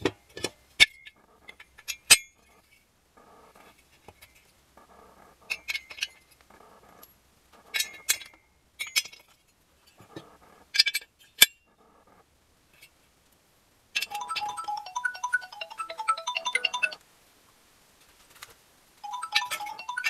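Sharp metallic clinks and clicks of aluminium cylinder heads, washers and nuts being set on a motorcycle engine, with short rubbing sounds between them. About two-thirds of the way in, music of quick bell-like notes takes over.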